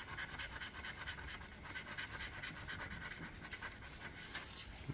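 A scratch-off lottery ticket being scraped, with quick, continuous scratching strokes across the card's coating.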